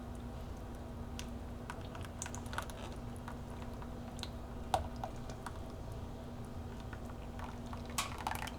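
Scattered light clicks and taps of small handwork, with a sharper tap about halfway through and a short cluster near the end, over a steady low hum.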